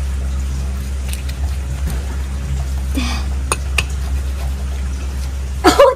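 A knife cutting through a large grouper's flesh along the bones, giving a few faint clicks and scrapes over a steady low background hum. A person's voice is heard briefly near the end.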